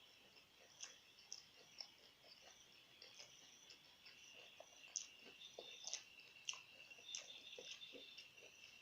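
Faint close-up chewing: scattered soft clicks and smacks of a mouth eating. A steady high-pitched trill runs behind it from about four seconds in.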